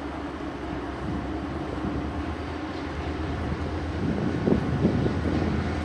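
Locomotive-hauled passenger train running along the line, a steady low rumble that grows louder as it comes nearer, with rougher loud peaks about four and a half seconds in.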